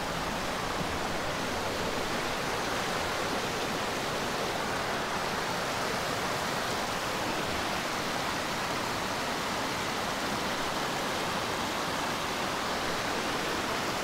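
Shallow mountain creek rushing over rocks: a steady, even rush of water.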